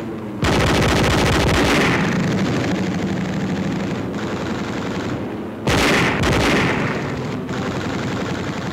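A bomber's defensive machine guns firing two long rapid bursts: the first starts about half a second in and runs several seconds, and the second starts around six seconds in.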